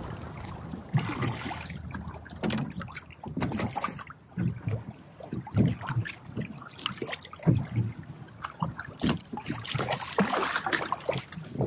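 Choppy water slapping and splashing irregularly against the hull of a small fishing skiff, heard close to the water, with splashes from a hooked trout fighting at the surface near the end.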